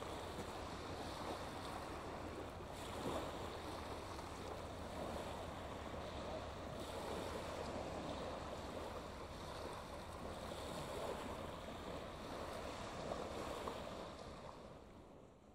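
Small waves breaking and washing up a shingle beach, in gentle repeated swells, fading out near the end.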